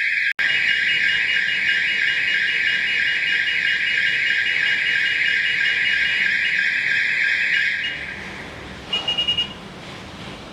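Fire alarm sounding continuously and loudly, set off during a smoke-detector test of the system. It cuts off about three-quarters of the way through, and a second later there is a short run of about five quick beeps.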